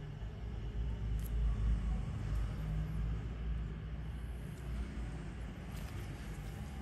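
A low steady background rumble, with a few faint light clicks.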